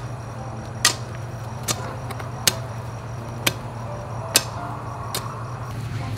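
A metal-bladed hoe chopping into dry, clumpy soil, six sharp strikes at an even pace of a little under one a second, over a steady low hum.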